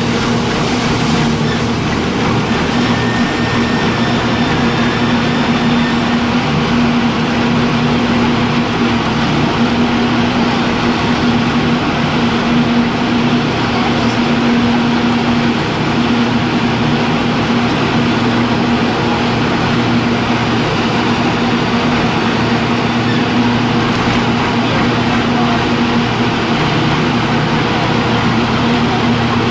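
Rotary-cutter straw crusher running steadily: a loud, unchanging machine hum with a constant tone, mixed with the noise of straw being fed in and ground.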